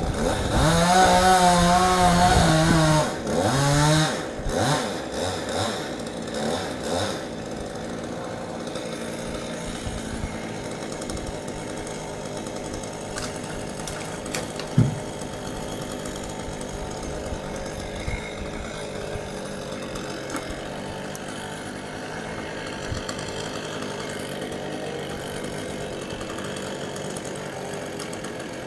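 Chainsaw running at full throttle for about three seconds, then revved in a few short blips and left idling steadily. A single sharp thump about fifteen seconds in.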